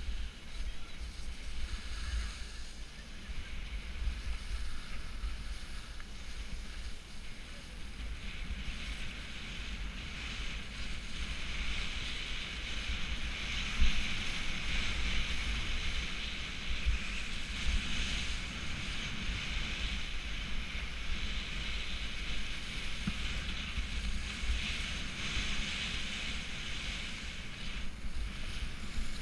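Skis hissing and scraping over wet, heavy spring slush, with wind buffeting the microphone. The hiss grows louder from about a third of the way in, and there is one sharp knock near the middle.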